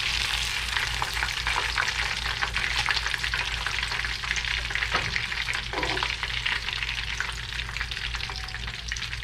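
Food frying in hot oil on a flat-top griddle: a steady, dense crackle of popping and spitting oil that stops abruptly near the end.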